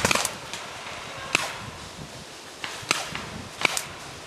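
Paintball markers firing: a quick cluster of sharp pops at the start, the loudest sound here, then single pops at irregular intervals, some in close pairs.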